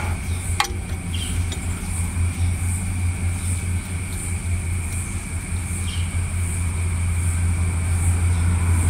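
Massey Ferguson 188 tractor's engine idling steadily, with a single sharp click less than a second in as a spanner works a bolt on the hydraulic housing.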